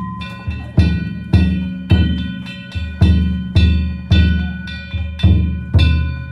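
Danjiri float music: a large festival drum and hand gongs struck together in a steady beat, about two strokes a second, each deep drum stroke carrying a ringing metallic gong tone.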